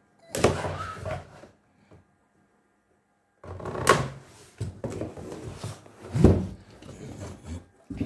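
Cardboard shipping box being opened: a blade slitting the packing tape, then the cardboard lid scraping and flapping open in a longer run of rustling and knocks.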